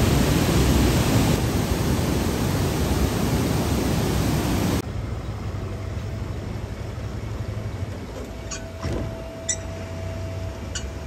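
Water rushing and churning as it pours through the upper gates into a river lock chamber, filling it fast to lift a boat; a loud steady rush. About five seconds in it cuts off suddenly to a much quieter low rumble, with a few short high chirps near the end.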